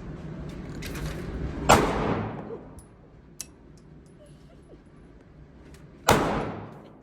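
Two shots from a Glock pistol, about four seconds apart, each a sharp crack with a short echoing tail in the range.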